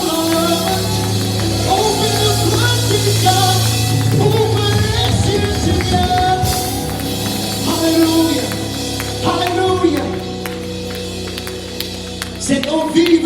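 Church worship music: a sung melody over held bass chords, with a bright shimmer of percussion up high.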